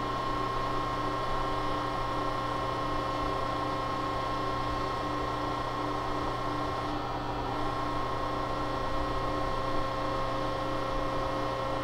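Landis universal cylindrical grinder running under power: a steady mechanical hum with several held tones and no change in pitch or level.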